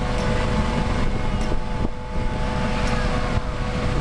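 Airbus AS365 N3 Dauphin's twin Turbomeca Arriel 2C turboshaft engines running on a ground run as the main rotor begins to turn. A steady turbine whine sits over a low rumble.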